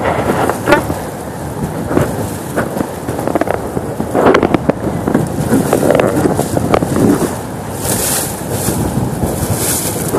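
Fast river water rushing, with irregular splashing as a hooked steelhead thrashes at the surface. Gusts of wind buffet the microphone near the end.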